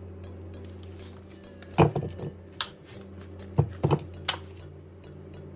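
A plastic supermarket chicken tray being handled and opened, and raw chicken drumsticks tipped into a wooden bowl. Several sharp crinkles, clicks and knocks fall between about two and four seconds in, over a steady low hum.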